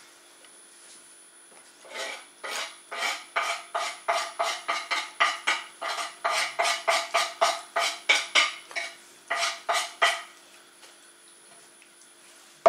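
A metal utensil clinking rhythmically against a cooking pot, about three to four strikes a second, as a pot of soup is stirred. It starts about two seconds in and stops about ten seconds in.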